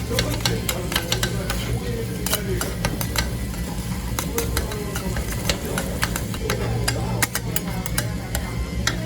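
Metal spatulas chopping and scraping monja ingredients (cabbage, sakura shrimp, dried squid) on a hot iron griddle: quick, irregular clicks and taps of metal on metal over a light sizzle.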